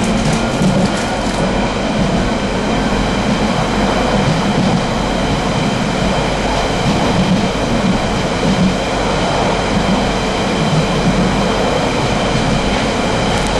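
London Underground 1992 stock train running at a steady speed: a continuous rumble with several steady high whining tones, and a few clicks over the rails in the first second or so.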